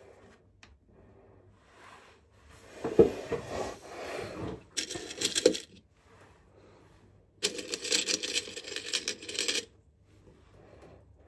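Small metal pieces jingling and clinking in the hands, in two spells, a short one about five seconds in and a longer one of about two seconds near the end, after some handling rustle.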